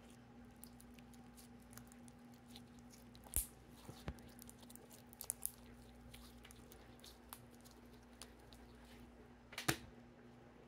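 Putty-like slime being squeezed and stretched in the hands, giving faint crackles and small pops, with a few louder pops about three seconds in and again near the end.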